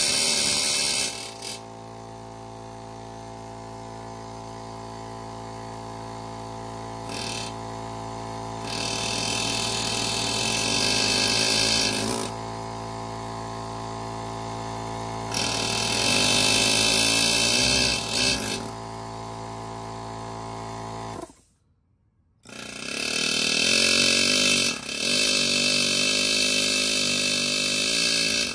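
Pneumatic air chisel hammering in several bursts of a few seconds each against a car wheel, used to free a stuck wheel, while an electric air compressor runs steadily between them. About two thirds of the way through the sound drops out for about a second before the chisel runs again, louder and longer.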